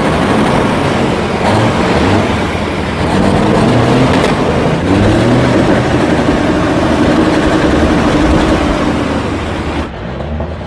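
Big-rig semi-truck diesel engines revving hard, the pitch climbing about four seconds in and held high for several seconds. Near the end it cuts to a quieter, lower truck engine.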